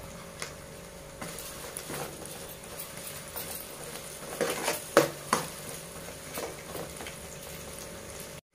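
Perforated metal spoon stirring chopped vegetables in a large metal pot, with scrapes and clinks against the pot, the loudest about five seconds in, over a faint steady sizzle of frying.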